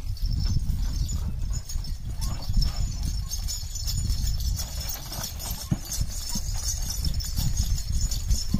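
Hooves of a pair of bullocks clopping on a dirt track as they pull a cart loaded with sugarcane, over a steady low rumble.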